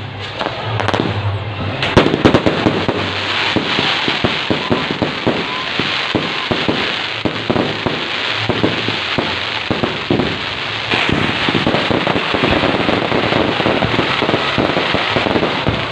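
Fireworks display: a dense, continuous volley of crackling bangs and pops, with a loud burst about two seconds in.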